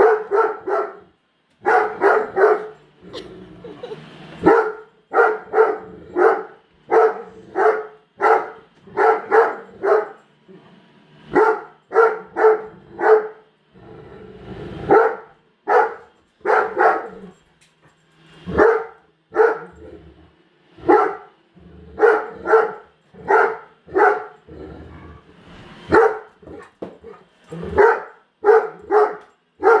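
Great Dane barking over and over at a Roomba robot vacuum, about one bark a second, often in runs of two or three.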